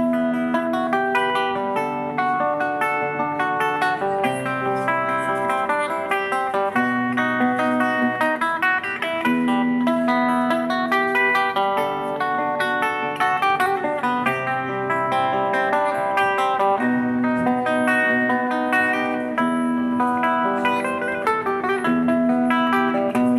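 Electric archtop guitar played through a small Roland Cube amplifier: an instrumental intro of picked single notes over steady held low notes.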